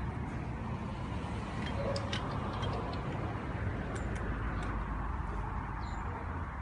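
Steady low background rumble with a scatter of light ticks and clicks, bunched about two seconds in and again about four seconds in.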